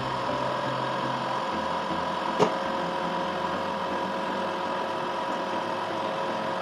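Metal lathe running with a steady hum and whine, and a single sharp click about two and a half seconds in.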